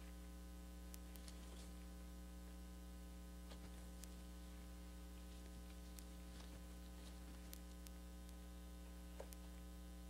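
Low, steady electrical mains hum, with a few faint scattered clicks.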